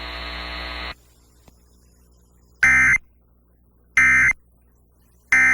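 A steady buzzing hum that cuts off about a second in, then three short, identical bursts of Emergency Alert System digital data tones about 1.4 seconds apart: the end-of-message code that closes a weather warning broadcast.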